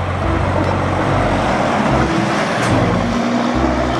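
Truck engine running steadily, a dense rumble with shifting low tones underneath.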